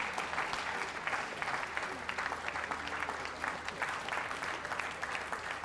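Audience applauding: many hands clapping together, steady throughout.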